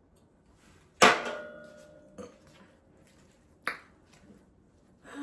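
An eating utensil strikes a dish about a second in: a sharp clink that rings on briefly. A second, shorter click follows near the end.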